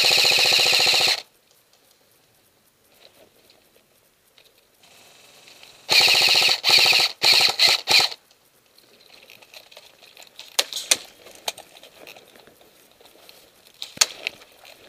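Airsoft gun firing on full auto in rapid buzzing bursts. One long burst stops about a second in, and several short bursts follow about six to eight seconds in. Fainter scattered shots come after.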